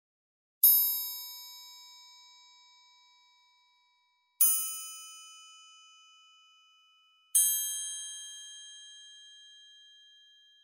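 A small meditation bell struck three times, each ringing out and dying away over a few seconds, each strike a little higher in pitch than the one before: the bell that closes a period of silent meditation.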